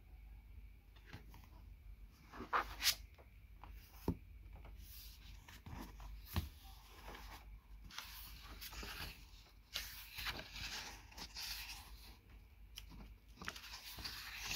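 Paperback book being handled: a few sharp taps and flaps as it is picked up and its cover opened, then paper rustling as the pages are turned.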